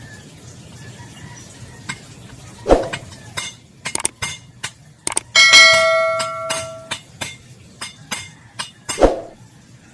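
Hammer striking a metal car door hinge: a run of irregular taps with two heavier blows, and one strike about halfway through that leaves the metal ringing for over a second. The hinge's lock part is being hammered so that it holds the door open again.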